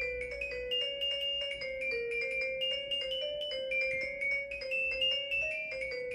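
Plant biodata sonification device wired to an aloe vera plant, playing a quick run of short synthesized notes, about four or five a second, over a lower held tone that steps up and down in pitch. The notes follow the plant's changing electrical signal, and they come fast.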